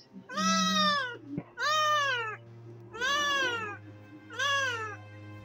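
Kitten meowing four times in distress, each call rising then falling in pitch, while a needle injects local anaesthetic around its injured eye.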